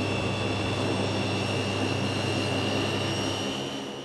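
Twin turboprop engines of a Gulfstream I (G-159) research aircraft running as it taxis: a steady high whine over a low drone, fading out near the end.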